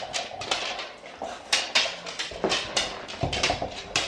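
Two dogs nosing a treat-stuffed rubber toy around on a hardwood floor, with claws on the floor: a run of irregular knocks and clicks.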